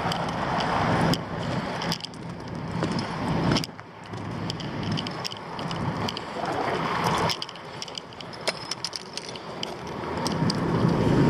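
Engine noise from vehicles and heavy machinery working close by, swelling and fading several times, with scattered sharp clicks and knocks.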